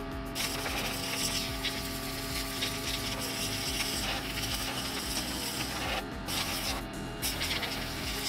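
Compressed air hissing from an air blow gun aimed into a computer case. It runs as one long blast, cut off briefly twice about six and seven seconds in, with the blast resuming after each break.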